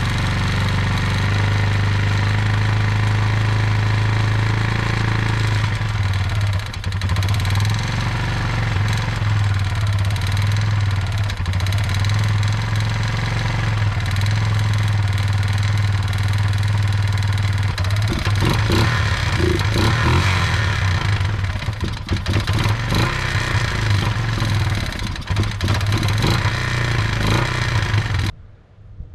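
Kawasaki Bayou 220 ATV's single-cylinder four-stroke engine running steadily after starting on the electric starter. From about two-thirds of the way in it runs unevenly, rising and falling, and it cuts off suddenly near the end.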